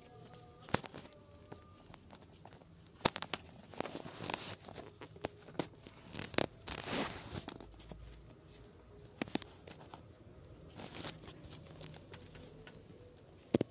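Kittens moving about on a hard floor and being touched by a hand: scattered sharp clicks with short scratchy rustles and scrapes, the busiest stretch in the middle.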